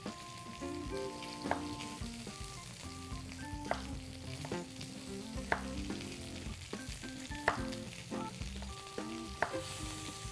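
Kitchen knife cutting a potato into cubes on a wooden chopping board, a sharp tap every second or two as the blade hits the board. Underneath is a steady sizzle of food frying in a hot pan.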